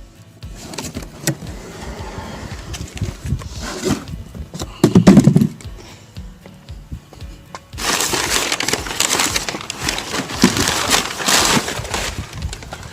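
Cardboard shipping box being opened and unpacked: scattered knocks and taps, one heavy thump about five seconds in, then a long stretch of crackling, rustling packing material, with music playing underneath.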